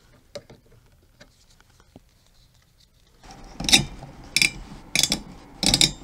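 A few faint clicks, then from about three seconds in a run of sharp clicks, roughly one every half second or so, from a screwdriver driving down the CPU cooler's mounting screws on the motherboard.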